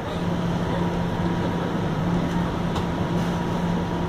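Cabin noise inside a Bombardier Flexity Outlook low-floor streetcar: a steady low hum with a faint higher steady tone over even running noise.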